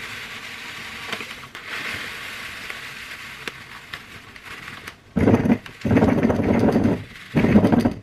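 Dry breadcrumbs poured from a plastic packet into a glass jar: a steady trickling hiss, then from about five seconds in three louder rushes of crumbs and packet rustling as more is shaken out.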